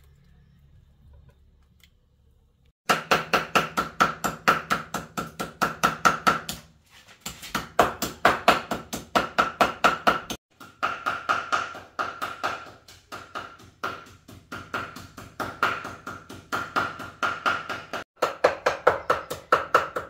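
Cleaver chopping raw meat into mince on a wooden chopping board: rapid, even chops about five a second with a ringing knock, in several runs with short pauses between them, starting about three seconds in.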